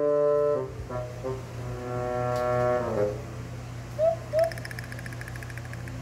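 Playful background music: held, horn-like notes and a long sustained chord, then two short rising swoops about four seconds in, followed by a quick high ticking.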